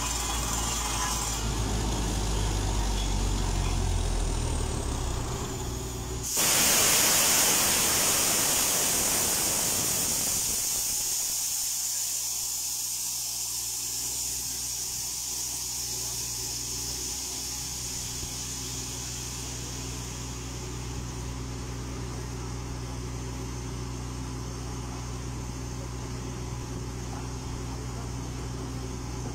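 Truck-mounted down-the-hole drilling rig running with compressed air, blowing dust from the hole. About six seconds in comes a sudden loud rush of compressed air hissing, which fades over several seconds. After that the rig's engine and air compressor keep up a steady low drone.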